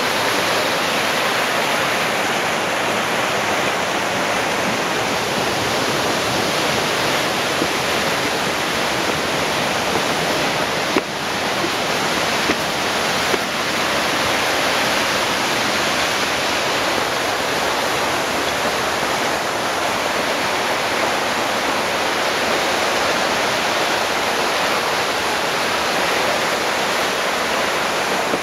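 Creek rushing over rocks in a steady wash of water noise, with a few light knocks about halfway through.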